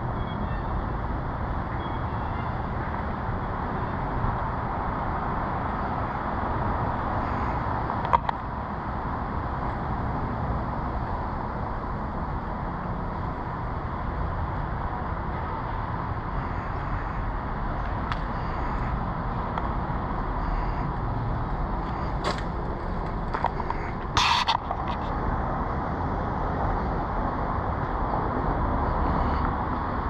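City street ambience: a steady hum of road traffic, with a sharp click about eight seconds in and a brief louder clatter near the end of the third quarter.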